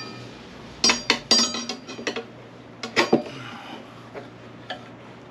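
Steel tyre levers clinking and scraping against a motorcycle wheel rim as a new tyre's bead is levered over the rim edge: a quick cluster of ringing metal clinks about a second in and two more around three seconds in, with lighter taps between.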